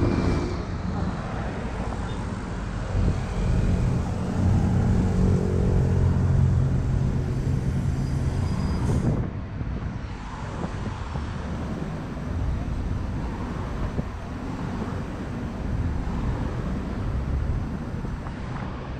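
City bus engines running close by: one engine hums steadily for about the first nine seconds, then, after a sudden cut, an articulated bus idles with street traffic rumbling around it.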